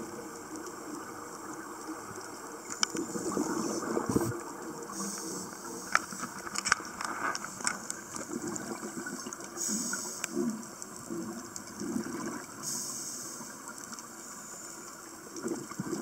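Underwater sound of scuba divers' exhaled regulator bubbles gurgling in swells every few seconds, with scattered sharp clicks and pops.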